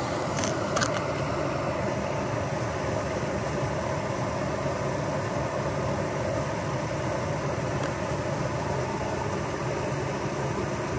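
Steady rush of water from a small creek waterfall spilling over rocks, with a couple of sharp clicks less than a second in.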